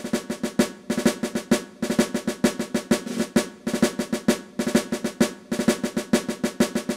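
Intro music: a fast drum pattern of rapid snare-drum strikes and rolls, several hits a second.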